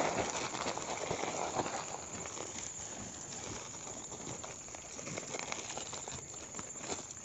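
Thin plastic bag rustling and crinkling as it is handled at the mouth of a fish trap, a dense crackle that is loudest in the first couple of seconds and then continues more softly.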